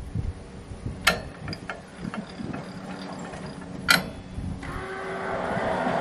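Two sharp metallic clacks and a few lighter clicks as the head of a Wood-Mizer LT15GO portable sawmill is handled, then a steady mechanical running noise sets in about four and a half seconds in and grows.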